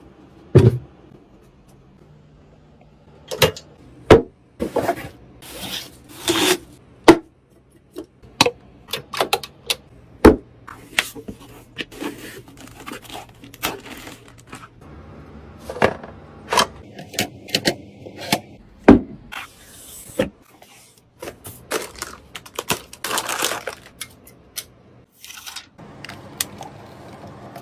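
Computer parts being handled and fitted into a PC case: a long series of separate clicks, knocks and scrapes, some loud, over a faint low hum that changes several times.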